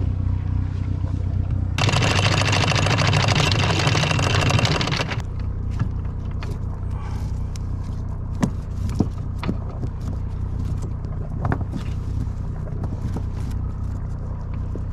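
Sailboat's inboard engine idling with a steady low hum. About two seconds in, a loud rushing hiss lasts about three seconds; after it, scattered light clinks of the anchor chain and rope being handled at the bow.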